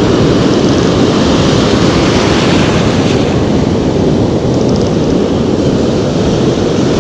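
Steady, loud roar of breaking ocean surf mixed with wind buffeting the camera microphone, heaviest in the low rumble, with no distinct single events.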